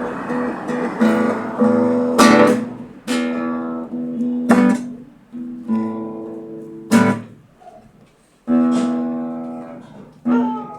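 Guitar strummed in separate chords, each ringing out and fading before the next, at an uneven pace with a longer pause about eight seconds in.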